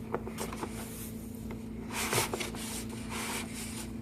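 Packaging being handled and opened: rubbing and rustling, with a few light clicks in the first half second and two louder rustles about two and three seconds in, over a steady low hum.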